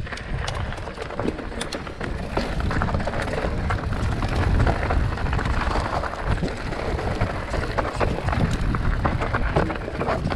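Mountain bike riding over a rough, rocky trail: tyres crunching and clattering over loose stones with frequent small knocks and rattles, over a steady low rumble of wind on the microphone.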